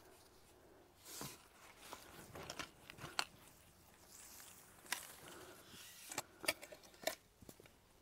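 Hands digging through dry soil to pull up potatoes: faint scraping and crumbling of earth and rustling of dry stalks, with a few sharp clicks and knocks scattered through.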